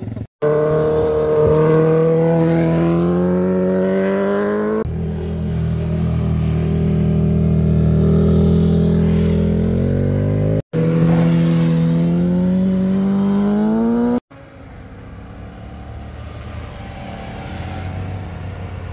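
Motorcycles accelerating out of a hairpin bend one after another, each engine's note climbing as the bike pulls away. The sound cuts off abruptly between passes three times, and the last pass is quieter.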